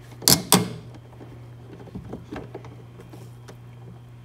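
Ratchet wrench with an 8mm socket on a tail light mounting nut: two sharp metal clacks just after the start, then scattered light clicks as the ratchet is worked.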